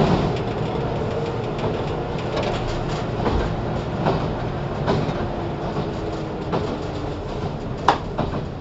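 Running sound heard inside the motor car of a JR 413 series electric multiple unit: a steady rumble from the train in motion, with wheels clicking over rail joints several times. A faint tone slides slowly down in pitch in the second half, and there is a sharp click near the end.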